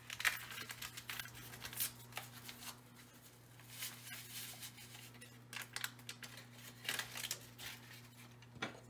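Paper cheese-sauce packet from boxed macaroni and cheese rustling and crinkling as it is torn open and shaken to pour the powder into the pot. Faint, scattered crackles over a steady low hum.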